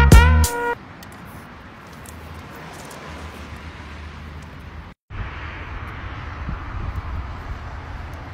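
A music track cuts off under a second in, leaving steady outdoor background noise with a low rumble, like distant road traffic. The sound drops out completely for a moment about five seconds in, then the same traffic noise resumes, a little louder.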